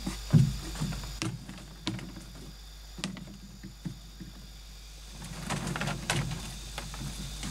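Hollow knocks and clacks of bamboo poles being set upright and bumped against a bamboo floor and frame, the loudest a sharp thump about half a second in, followed by a few lighter knocks and a busier patch of scraping and handling near the end.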